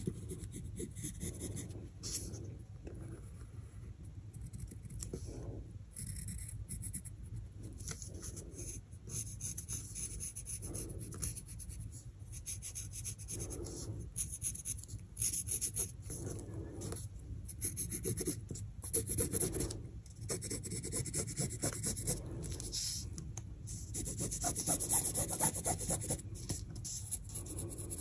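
A pencil scratching on fabric as it traces around the edge of a paper pattern piece: a continuous soft scraping in short, uneven strokes.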